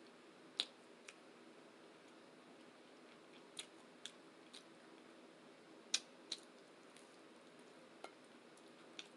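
Quiet eating sounds close to the microphone: about nine sharp, irregularly spaced mouth clicks and smacks while chewing, the loudest about half a second and six seconds in, over a faint steady hum.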